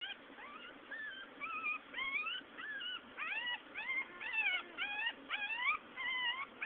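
Newborn puppies whining: a quick run of short, high squeaky cries, about three a second, each sliding up or down in pitch.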